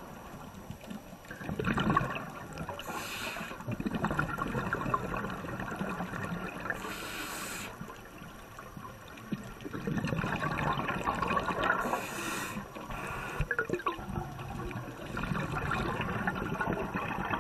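Scuba diver's regulator exhaling, heard underwater: bursts of bubbling and gurgling that swell and fade every few seconds, with a short hiss of breathing in between bursts. The sound cuts off suddenly at the end.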